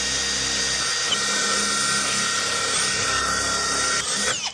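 Power drill running at a steady high speed with a high whine, which drops in pitch as the drill winds down and stops near the end.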